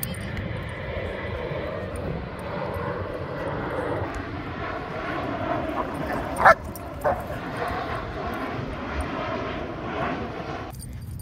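Steady rumble of an airplane passing overhead. About halfway through, a dog barks loudly once, then again, more weakly, half a second later.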